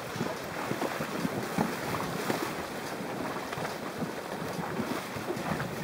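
Several horses wading through shallow creek water, hooves splashing in a continual, irregular churn of short splashes.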